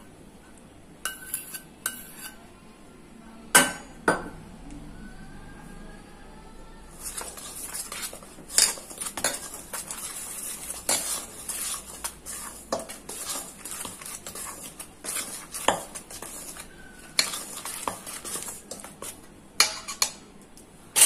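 Metal spoon stirring and scraping in a stainless-steel bowl, clinking against its sides, mixing egg into rice flour, cornflour and spice powders for a fish-fry batter. A few separate clinks come first, then from about seven seconds in the stirring goes steadily with rapid clinks.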